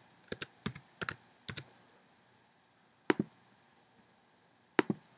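Irregular sharp clicks: about six in quick succession in the first second and a half, then two single clicks, one about three seconds in and one near five seconds.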